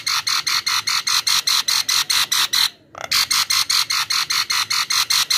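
Javan myna giving a fast, harsh chattering rattle of about eight notes a second. It breaks off for a moment just under three seconds in, then starts again.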